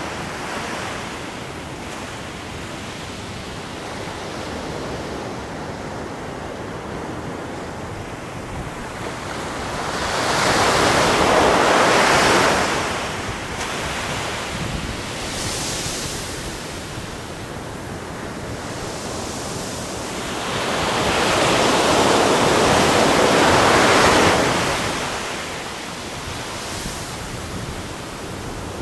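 Ocean surf breaking on a beach: a big wave crashes and washes in about ten seconds in, and another around twenty seconds in. Each lasts a few seconds over a steady hiss of surf between them.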